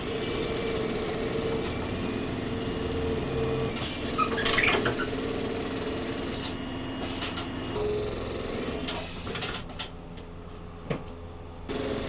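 Tire-changing equipment running in a mobile tire-service van: a steady mechanical hum with air hissing that starts and stops several times, and a sharp click near the end.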